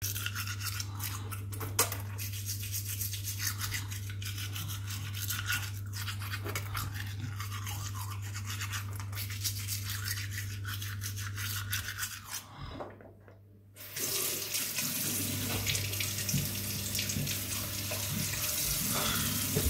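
Manual toothbrush scrubbing teeth in quick, irregular strokes over a low steady hum; after a brief pause about thirteen seconds in, a tap starts running steadily into a sink.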